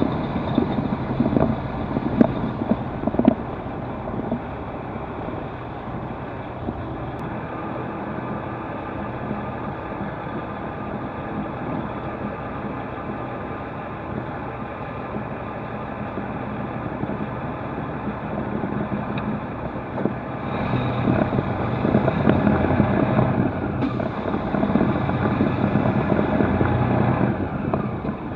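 Semi truck's diesel engine running at low speed, heard from inside the cab, with a few knocks in the first seconds. For several seconds about three-quarters of the way through it pulls harder and gets louder, then eases off near the end.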